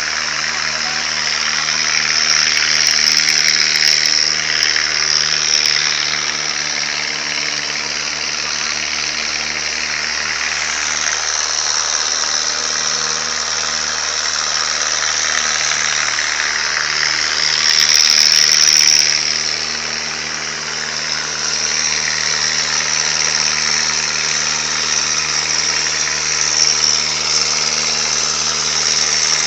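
An engine running steadily at an even speed, under a loud steady hiss that swells briefly about two-thirds of the way through.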